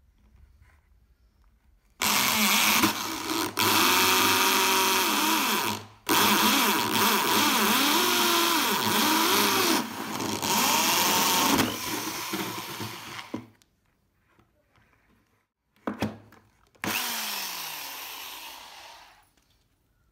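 Electric drill driving a hole saw through the plastic wall of a bucket, running in loud stretches with a brief break, its pitch wavering as the teeth bite. After a pause it runs once more briefly and fades out near the end.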